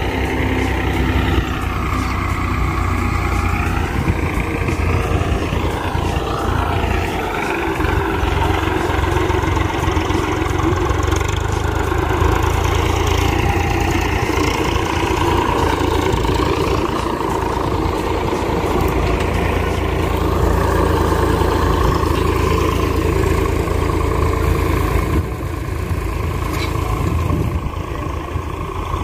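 Swaraj 735 tractor's three-cylinder diesel engine running steadily under load as it pulls a harrow through the field, dipping slightly near the end as the tractor moves away.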